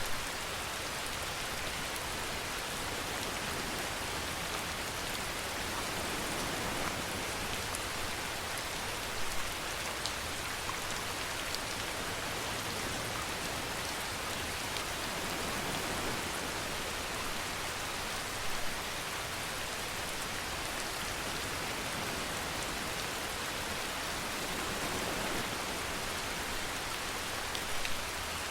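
Steady rainfall hissing and pattering on surfaces, with a few slightly louder patters now and then.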